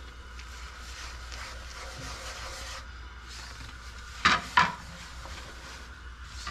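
Silicone spatula stirring and scraping a crumbly mix of powdered milk, condensed milk and ghee around a nonstick pan, a steady rubbing. A little over four seconds in come two loud knocks about a third of a second apart.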